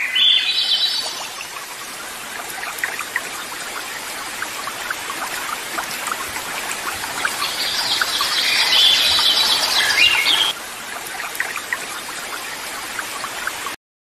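A penguin colony calling, high-pitched cries near the start and again from about seven to ten seconds in, over a steady wash of sea water with small splashes as penguins jump in.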